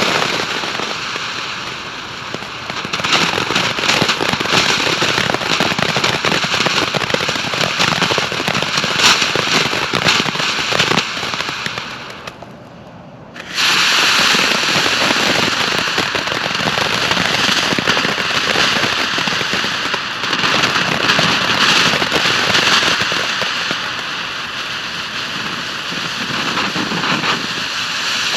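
TNT Razzle Dazzler fountain firework spraying with a dense hiss and rapid crackling. It dies down about twelve seconds in, then comes back at full strength a second and a half later.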